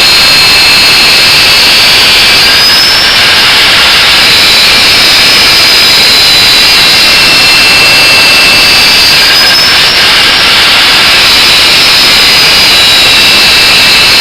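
Angle grinder running continuously while grinding the edge profile of a leaf-spring steel knife blade: a loud, steady grinding noise with a high whine that rises and falls in pitch a few times.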